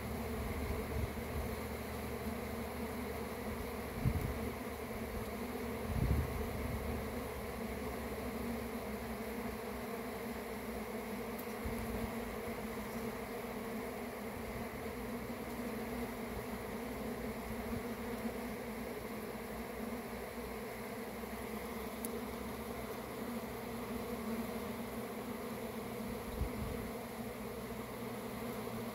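A dense cluster of honeybees on the comb buzzing: a steady, even hum, with a couple of low thumps about four and six seconds in.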